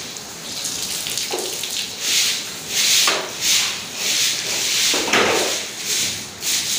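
Brisk scrubbing of a wet wall, a swish about every two-thirds of a second, with a few heavier scrapes or splashes of water among them.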